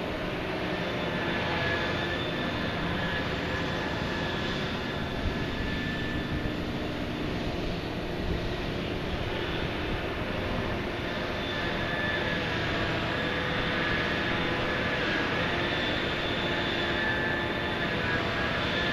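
Liebherr P995 dredging backhoe and its vessel's machinery running: a steady mechanical drone with a thin high whine over it.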